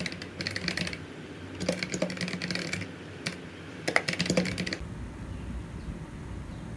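Typing on a computer keyboard: three quick runs of key clicks, each under a second, over the first few seconds. After that only faint steady room noise is left.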